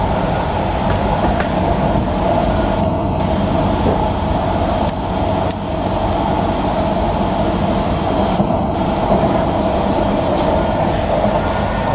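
Cabin noise of a Kawasaki C151B metro train running between stations: a steady rumble of the train in motion, with two sharp clicks about five seconds in.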